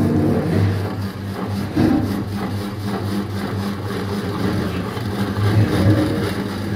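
Motor-driven cabbage chopper running with a steady hum, its spinning cutter disc shredding cabbage fed in by hand. The sound swells briefly about two seconds in and again near the end.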